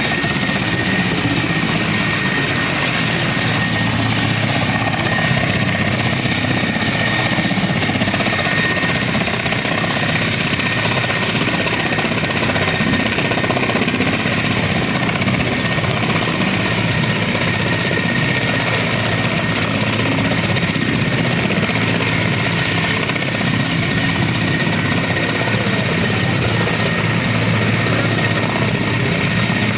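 Helicopter running steadily: a continuous rotor and engine noise with a thin, steady high whine over it.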